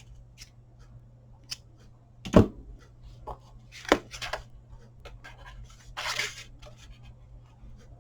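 Paper crafting being handled on a work table: scattered light clicks, a sharp knock about two seconds in and another about four seconds in, and a brief papery rustle about six seconds in.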